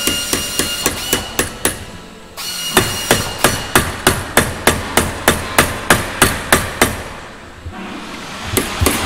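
Hammering: a quick, even run of sharp hammer blows, about four a second, pausing briefly about two seconds in and again near the end.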